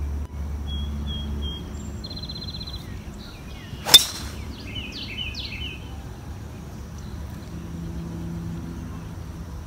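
A golf driver striking a teed ball once: a single sharp crack about four seconds in. Birds chirp before and after the shot.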